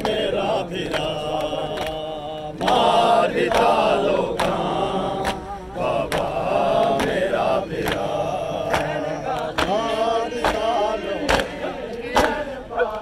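Men chanting a Muharram lament, kept in time by a steady rhythm of sharp hand slaps on their chests (matam), one or two strikes a second.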